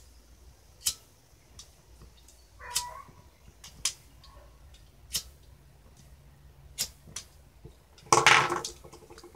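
Scattered sharp clicks as a plastic toy cap gun and a disposable lighter are handled, about one a second. About eight seconds in comes the loudest sound, a short meow-like cry.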